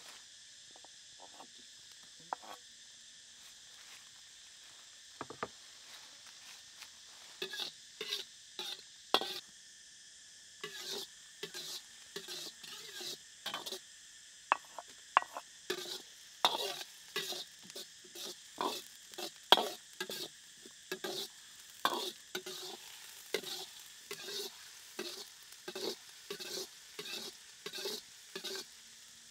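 A metal ladle scraping and clinking against a steel wok as it stirs minced aromatics frying in hot oil, over a sizzle. The stirring strokes begin about seven seconds in and repeat at a little over one a second.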